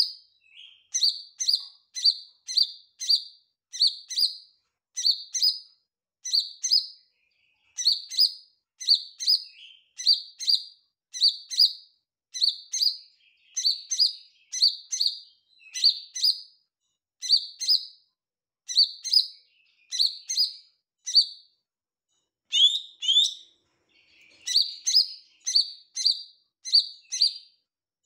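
Male lesser green leafbird (cucak ijo mini) singing persistently: a long, even run of short, high, clear chirps, one or two a second, broken by a brief louder sweeping phrase a little after halfway.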